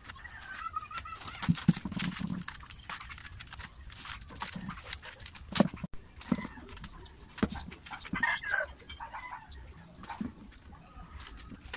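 Scattered light clicks and knocks from small electric-motor parts and wires being handled on a table, the sharpest about two seconds and five and a half seconds in. Short animal calls come from the background near the start and about eight seconds in.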